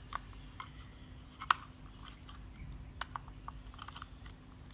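Light, scattered plastic clicks and taps from a video doorbell's casing being handled as its back case comes apart, with a sharper click about a second and a half in.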